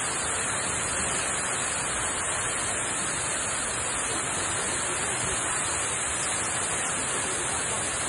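Waterfall rushing steadily as its water plunges onto rocks, a constant, even noise close by.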